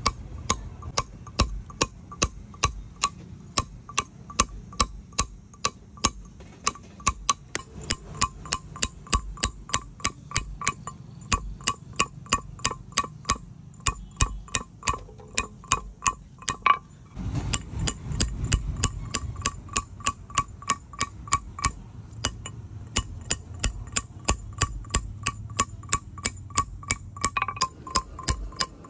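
Hammer striking a steel chisel on a stone grinding slab, about two to three sharp taps a second, each with a short metallic ring. The chisel is dressing and pecking the slab's grinding face.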